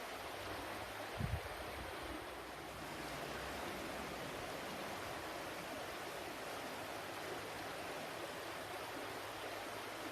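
Flowing water running steadily with an even rushing hiss, like a stream. A brief low thump about a second in.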